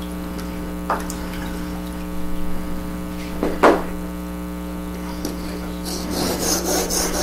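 Steady electrical hum throughout, with a few light clicks and one louder knock as a chisel is handled in its honing guide. About six seconds in, a chisel in a honing guide starts rubbing back and forth on a sharpening stone in quick, rhythmic strokes.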